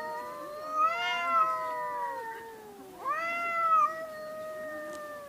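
Cat yowling in two long, drawn-out wavering wails, the second starting about three seconds in: the threat yowl of cats squaring up to fight.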